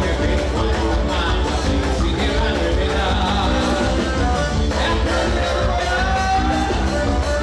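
Loud forró music with a singer over a quick, steady beat.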